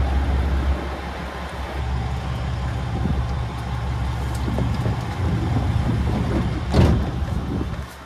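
Stationary train at a station platform giving off a steady low hum from its running equipment, with a short loud knock near the end as the push-button door is worked.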